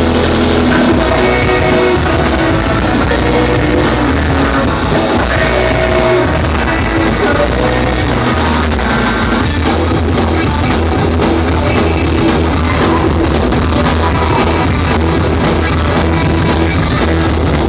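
Three-piece rock band playing live, loud and without a break: electric guitar, bass guitar and drum kit with cymbals, heard from within the audience.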